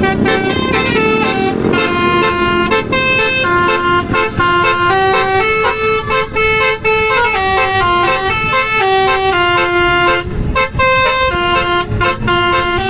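Telolet Basuri multi-trumpet bus air horn playing a tune, its notes held briefly and stepping up and down in pitch, with a short break about ten seconds in.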